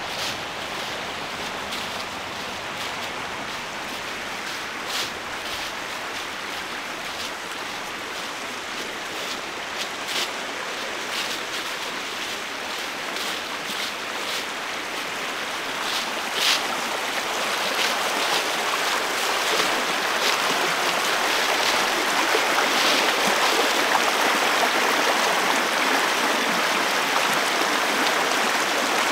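Rushing water of a stream, a steady hiss that grows louder from about halfway through, with a few short clicks over it.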